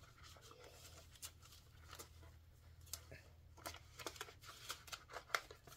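Faint rustle and small clicks of paper dollar bills and a plastic binder pouch being handled, with the ticks coming more often toward the end.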